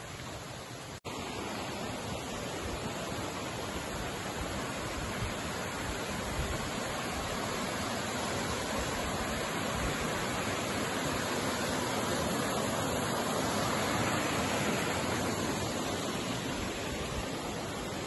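Steady rush of a rocky mountain stream's water, swelling gradually and easing near the end, with a brief dropout about a second in.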